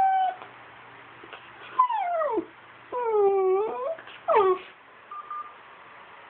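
Shiba Inu whining: a string of short, high whimpering calls, most sliding down in pitch and one dipping then rising. The whining is her nightly begging to be lifted into the owners' bed.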